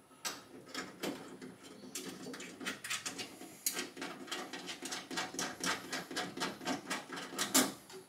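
Irregular small clicks and taps of hand tools and fasteners being worked inside a car door, a few per second, getting busier after about two seconds, with one sharper click near the end.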